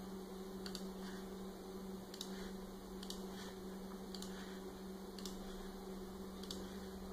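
Faint computer clicks, about once a second, as counterbore holes are placed one by one in a CAD drawing, over a steady low hum.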